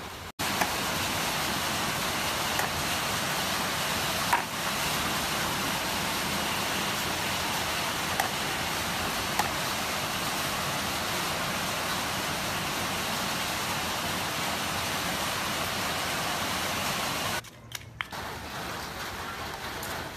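A steady, even hiss with a few faint clicks. It stops abruptly near the end and gives way to quieter background.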